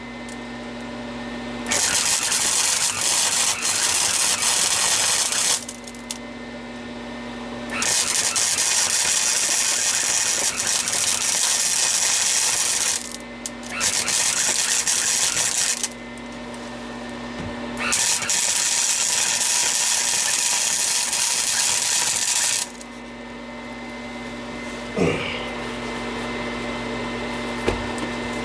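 MIG welding arc crackling and sizzling in four runs of a few seconds each, with short pauses between runs where a steady hum is heard.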